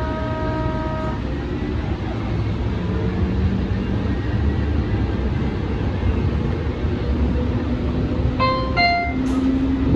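Siemens light-rail train running on the track, heard from the driver's cab: steady rolling rumble, with a low motor whine that rises in pitch as the train speeds up. A held horn note sounds briefly at the start, and a two-note chime comes near the end, ahead of the next-stop announcement.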